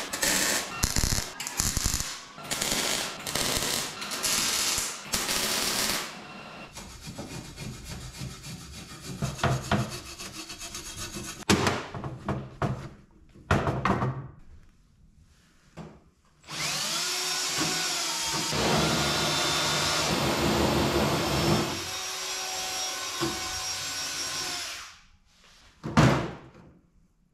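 Crackling bursts of a MIG welding arc, stopping and starting over the first six seconds. Later a power tool spins up and runs steadily for about eight seconds. A single knock comes near the end.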